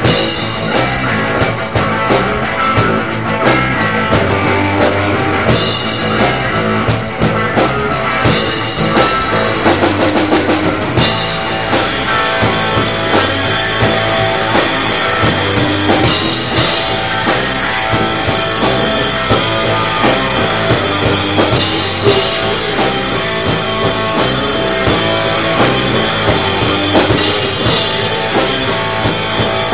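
Garage punk band playing at full tilt: electric guitars, bass and drum kit, in a lo-fi recording made on a boombox in a basement.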